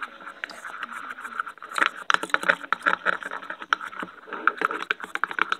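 Sticky, wet clicking and squishing of softened gum being kneaded by hand and worked around in water, in an irregular run of small clicks.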